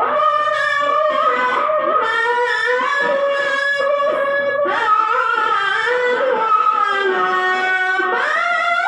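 A qari reciting the Quran in melodic tilawah style: one high, sustained male voice drawing out long ornamented melismas, pausing for breath and starting a new phrase twice.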